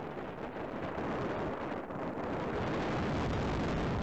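Thunderstorm on an outdoor nest-camera microphone: a steady rushing noise of wind and rain, with the rumble of thunder fading in the first second.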